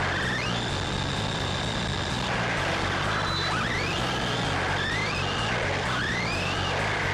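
Arrma Typhon 3S RC buggy's brushless motor whining under throttle. Its pitch rises four times as the car accelerates, and after the first rise it holds high for about two seconds.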